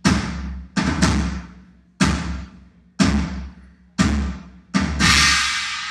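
Live rock band's drum kit playing heavy accents about once a second, each a kick drum with a crash cymbal ringing out and fading, with two quick double hits. Near the end a cymbal wash swells up into the start of the song.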